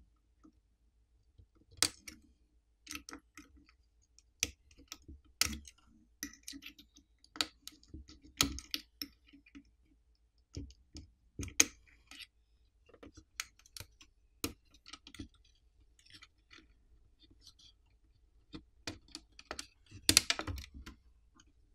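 Scattered light clicks and taps as a metal pry tool levers the coaxial antenna cable connectors off a wireless router's circuit board. There are a few sharper snaps, the loudest near the end.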